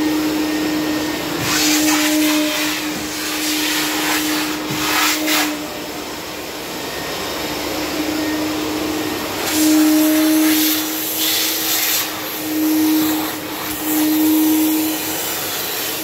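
Wet-and-dry canister vacuum cleaner running with a steady motor hum and a continuous rush of suction. The airflow hiss swells and falls several times as the hose nozzle moves over and off a leather sofa.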